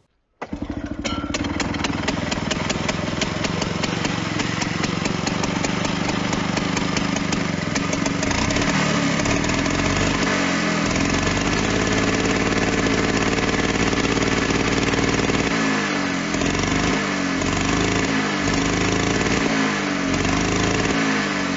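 McCulloch Pro Mac 605 58cc two-stroke chainsaw engine running, with distinct firing beats at first. From about a third of the way in it is revved up and down, and near the end it gets several quick throttle blips.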